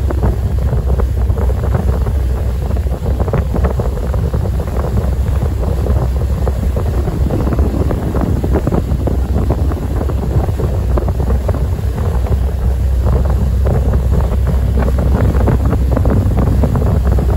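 Wind buffeting the microphone aboard a passenger ferry under way, over a steady low rumble of the ship's engine.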